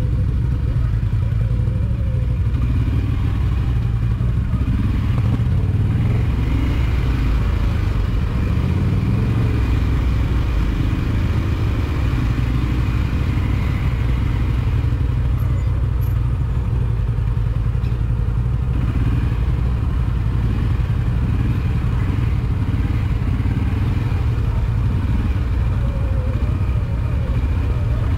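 ATV engine running steadily under way, a low, even drone that holds throughout.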